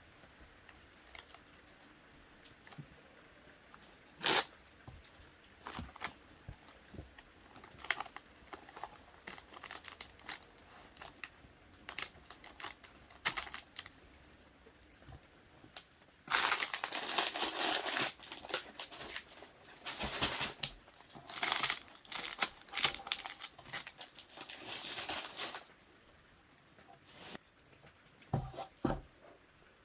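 Packaging being crinkled and rustled by hand, with scattered light clicks and knocks at first, then about ten seconds of dense, loud crinkling past the middle.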